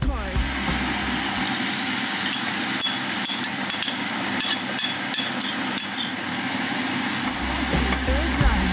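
Egg batter and bread sizzling in a hot, oiled frying pan on a gas burner: a steady frying hiss with small crackles. Background music fades out about a second in and comes back near the end.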